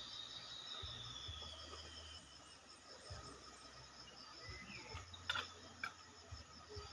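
Faint ambience of insects chirping in a steady pulsing pattern, with a bird's long, slowly falling whistle in the first two seconds. There are two sharp clicks about five seconds in.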